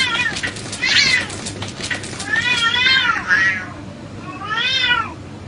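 Two domestic cats fighting, yowling in wavering cries, the longest about two and a half seconds in and another near the end, with sharp scuffling clicks in the first couple of seconds.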